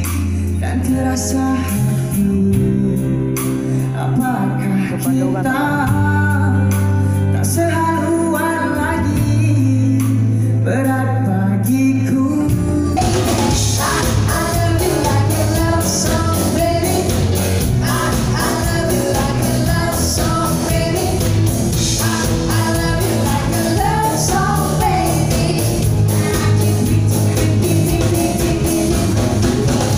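Live pop music with singing: a male singer over a sparse accompaniment of sustained low bass and keyboard notes. About halfway through it switches abruptly to the full band with drums, with a man and a woman singing a duet.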